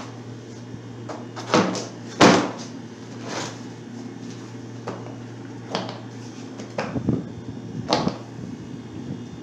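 A boxed porta power hydraulic jack kit being handled and opened: a string of separate knocks and clicks, a few of them sharp, as the box and its contents are moved and pulled open.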